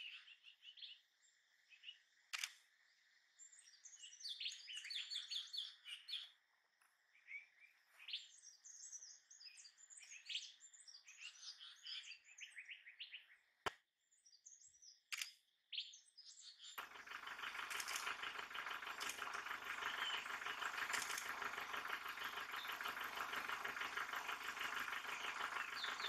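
Small forest birds chirping and trilling in short high phrases, with a couple of sharp clicks. About two-thirds of the way through, a loud, dense, rapidly pulsing buzz starts abruptly and keeps on, drowning out the birds.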